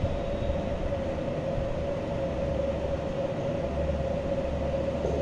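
Steady mechanical hum of room background noise, with a constant mid-pitched tone and a low rumble underneath.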